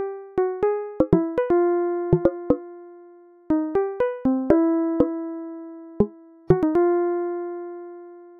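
Background music: a sparse melody of single keyboard notes, each struck and left to ring out and fade, sometimes in quick runs of two or three.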